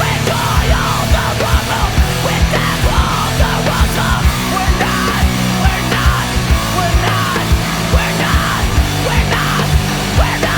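Heavy metal soundtrack music with fast, steady kick drums and a shouted vocal.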